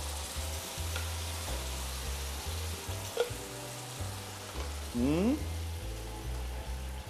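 Chicken fillet strips sizzling steadily in a frying pan on a gas burner, with red pepper pesto just poured over them. About five seconds in there is a short rising whine.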